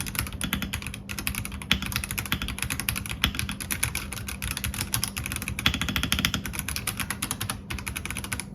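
Fast typing on an RK Royal Kludge H81 mechanical keyboard in its stock factory setup: a quick, continuous clatter of keystrokes, many a second.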